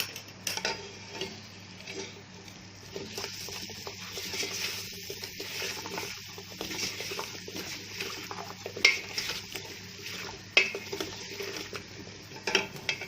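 Diced vegetables, spices and ham sizzling in hot oil in a pot while being stirred, with canned tomatoes just added. A few sharp knocks of the utensil against the pot stand out in the second half.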